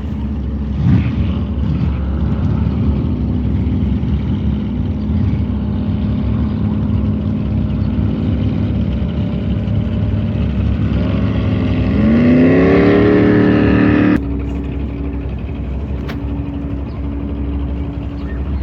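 High-horsepower jet boat engine running on the river, its pitch rising as it speeds up about two-thirds of the way through and is loudest there. The sound then breaks off suddenly, leaving a steadier, quieter engine tone.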